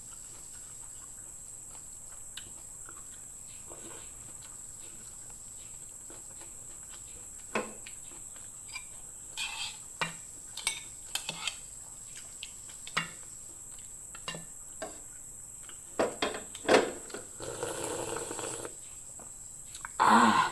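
Eating sounds: scattered short clicks and smacks of chewing and of dish and cutlery contact, starting about a third of the way in, with a short rustling stretch near the end. Under them runs a steady high-pitched whine.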